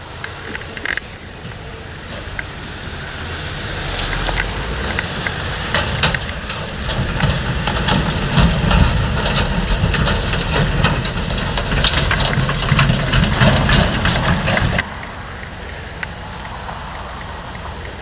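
Articulated grain lorry with a tipper trailer driving across a stubble field, its diesel engine rumble growing louder as it comes closer, with the trailer clattering and rattling over the rough ground. The sound drops suddenly to a quieter steady noise about three seconds before the end.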